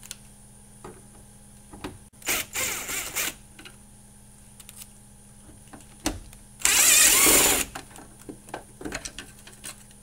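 DeWalt impact drill with a T27 Torx bit backing out the two bolts that hold a pickup's rear door handle: two runs of about a second each, some four seconds apart, the second louder. Small clicks of the bit and tool being handled come between them.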